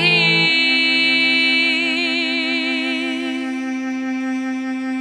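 Worship song: a female voice holds a long note with vibrato over a sustained accompaniment, the held note fading away after about three seconds.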